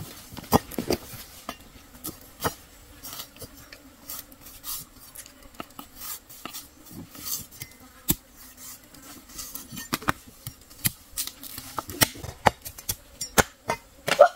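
Pots and utensils knocking and clinking at irregular intervals, the knocks coming thicker and louder in the last few seconds.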